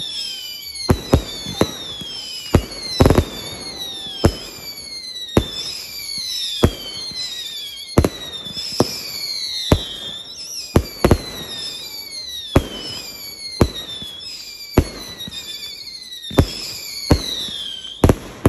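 A volley of firework shots going off in quick succession: sharp bangs about once a second, each trailed by a whistle that falls in pitch, the whistles overlapping one another.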